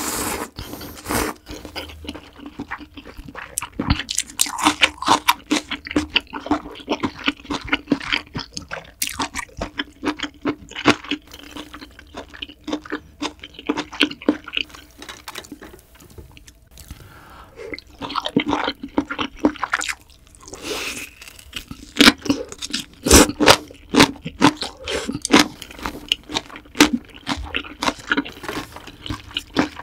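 Close-miked eating of spicy seafood ramyeon: wet chewing and crunching in quick, irregular clicks and smacks, thinning out for a moment midway before picking up again.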